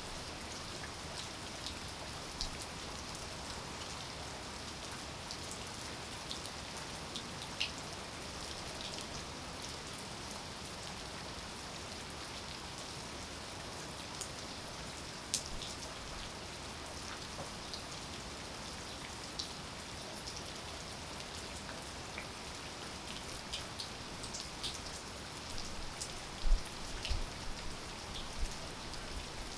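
Steady rain falling, with many separate drops tapping close by. A few drops land louder, one about halfway through and several near the end.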